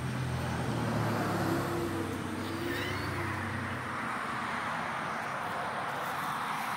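A motor vehicle's engine hum that fades out about four seconds in, leaving a steady noisy hiss.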